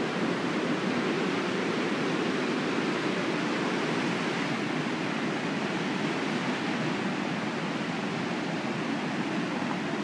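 Small waterfall rushing steadily down a rock chute into a pool: a close, even rush of white water.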